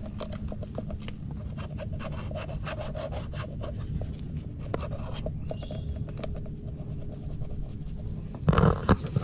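A metal crab hook scraping and rasping inside a mud crab burrow among mangrove roots and mud, as it is poked in to find the crab. It makes a quick run of short scratchy scrapes for the first five seconds or so, then quieter scraping, with a louder knock near the end.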